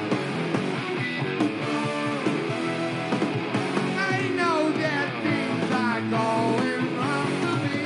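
Live heavy metal song playing back: distorted electric guitar with a male lead singer.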